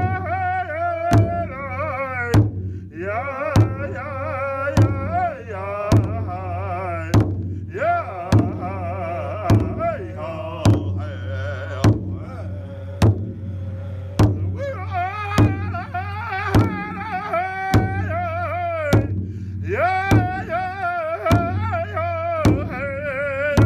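A Lakota-style song: a high, wavering voice singing over a steady drum beat, with a loud stroke about every second and softer ones between.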